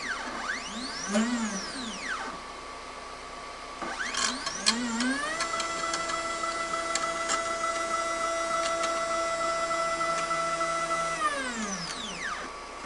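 Stepper motors of a CNC 3018 desktop machine driving its bed: a whine that glides up in pitch as the axis speeds up and back down as it slows. First comes a short move of about a second; then, about four seconds in, a longer move that holds a steady pitch for several seconds before winding down near the end.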